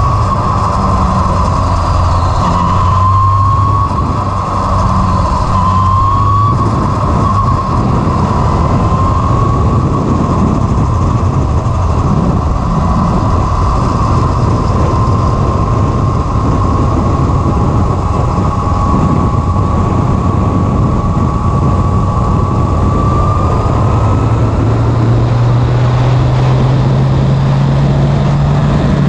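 Formula Renault single-seater's engine running hard at speed, heard from the cockpit with wind rush. The engine note rises and drops back three times in the first ten seconds, then holds steady and climbs again near the end.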